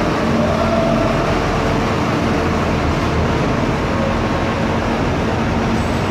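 Diesel engines of large intercity coaches running close by: a steady low rumble with a constant hum over it.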